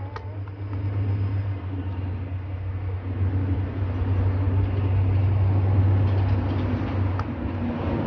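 Low, steady rumble that swells through the middle, with a few light taps of a football being juggled.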